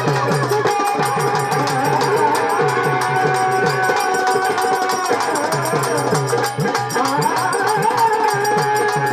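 A murali, a female Marathi folk singer, singing a traditional song in long held, slightly wavering notes over a quick, steady hand-drum beat.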